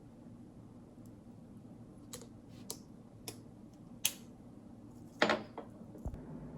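Several light, sharp clicks spaced about half a second to a second apart, with a louder short knock about five seconds in, over a faint steady hum.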